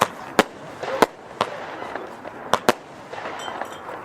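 Nico Steam Punk F2 firework battery (cake) firing: about six sharp bangs at uneven intervals, some in quick pairs, over a continuous rushing noise.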